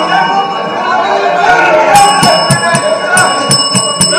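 The Speaker's electric bell ringing over many members shouting at once, calling the house to order. The ringing gets stronger about halfway through.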